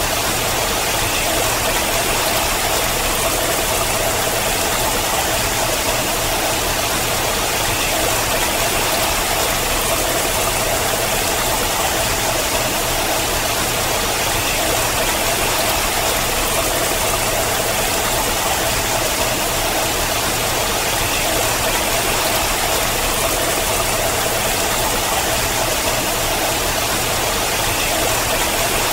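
Water running down a rock face and splashing at its foot: a steady, unbroken rush.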